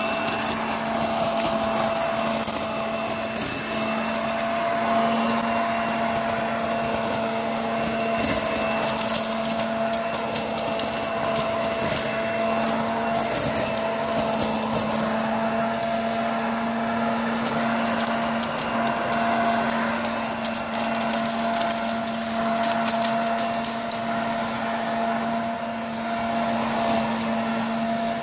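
Corded electric leaf blower-vacuum running steadily in vacuum mode, sucking up dry leaves: an even motor whine and rushing air with a scatter of small clicks and crackles.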